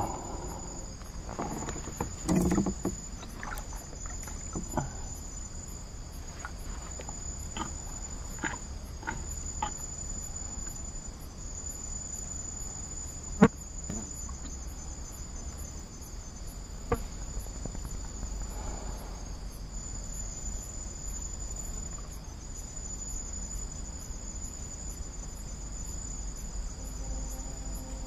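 A steady, high-pitched insect chorus that fades and returns every few seconds, over a low rumble, with a few short, sharp knocks scattered through. The two sharpest knocks fall around the middle.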